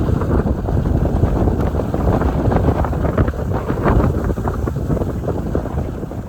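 Loud, gusty wind buffeting the microphone, a rumbling, fluctuating roar of air rushing past while moving downhill on skis.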